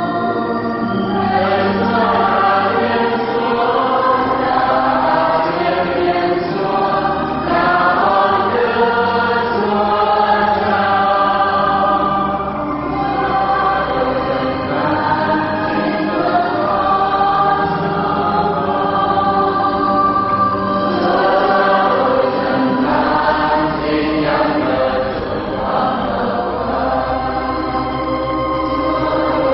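Choir singing a hymn in long held notes.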